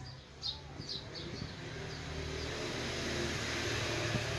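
A motor vehicle going past, growing louder over the last few seconds, with a few short bird chirps about half a second to a second in.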